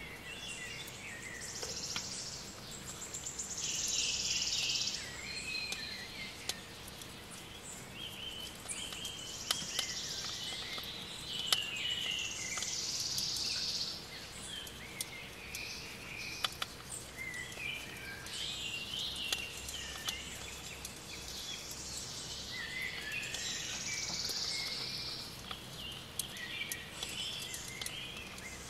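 Nature ambience of birds chirping and insects trilling, high-pitched, swelling in short spells every few seconds over a faint steady background.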